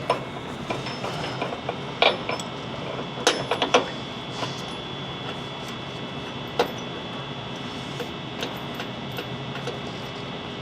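A few sharp metal clinks and taps from a body-mount lower cup and nut being handled and started by hand onto the core support bolt. The clinks come about two seconds in, twice more near the middle, and once more later, over a steady background hum.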